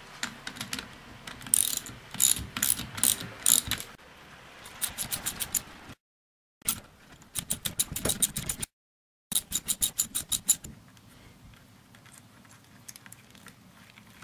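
Hand ratchet wrench clicking in runs of rapid, even clicks as the differential's bearing cap bolts are worked loose, with two brief dropouts in the middle; only faint ticks near the end.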